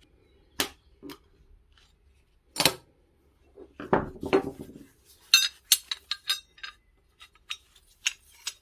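Small metal parts clinking and knocking. There are a few separate knocks, then a short rattle near the middle, then a run of quick, ringing metallic clinks.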